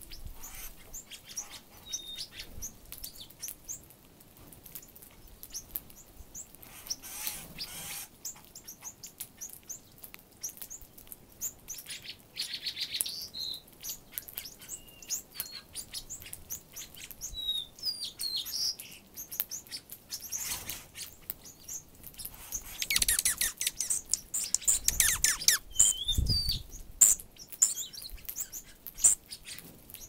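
Small birds feeding right beside the microphone: a running patter of clicks from beaks pecking and scratching through loose seed, with short high chirps and calls scattered through. The pecking and chirping grow busiest and loudest about two-thirds of the way in, with a low thud in the middle of that stretch.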